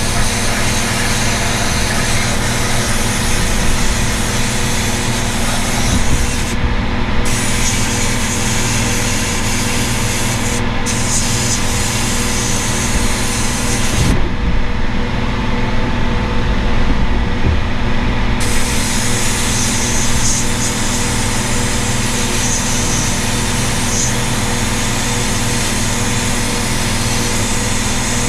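Sandblaster spraying abrasive with a steady hiss over a constant motor hum; the blast stops briefly a few times, once for several seconds, while the hum keeps running.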